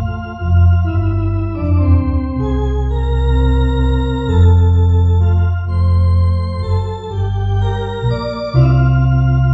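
MD-10 EVO electronic organ playing a slow hymn in sustained, held chords over a deep bass line, the chords changing every second or so.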